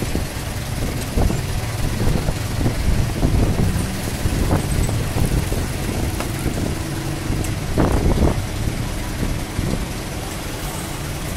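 Steady low rumble of motor traffic, with indistinct voices and a few short knocks.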